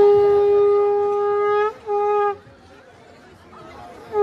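A horn blown in one loud, steady note held for nearly two seconds, then, after a brief break, a shorter note that sags in pitch as it stops.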